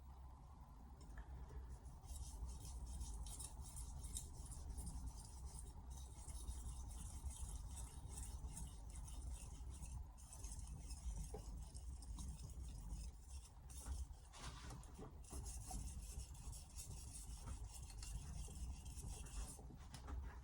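Carbon-steel knife blade being stroked back and forth on a splash-and-go whetstone: a continuous, hissy rasp of steel on wet stone, starting about two seconds in, with a short break partway through.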